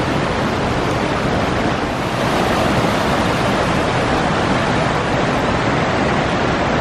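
River water rushing over rocks and through white-water rapids, a steady, even rush with no breaks.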